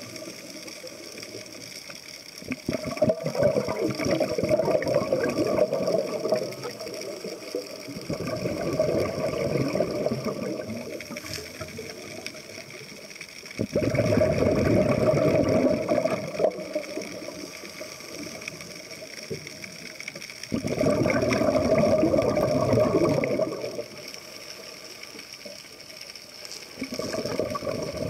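Scuba regulator exhaust: five bursts of bubbles from a diver's exhalations, each two to three seconds long and about six seconds apart, heard underwater as a low muffled rumble with quieter gaps between breaths.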